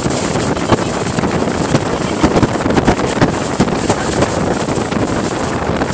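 Wind rushing over the microphone and water spraying up beside a fast-moving boat, with irregular knocks as the hull meets the waves.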